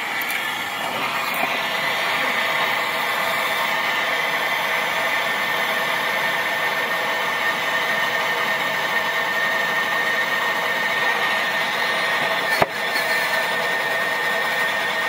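Handheld gas torch burning with a steady hissing flame, heating a copper pipe joint to sweat off a soldered tee fitting. A single sharp click sounds late on.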